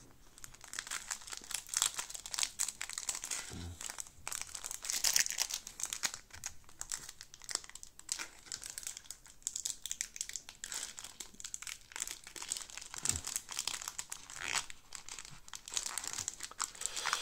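Foil wrapper of a Pokémon trading-card booster pack crinkling and crackling in the hands as it is squeezed, bent and folded.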